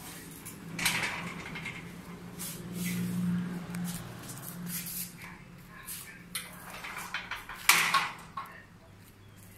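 Steel bi-fold gate on a sliding track being drawn across: a low rolling rumble with metal clanks and rattles, a sharp clank about a second in and the loudest clank near the end as the gate comes shut.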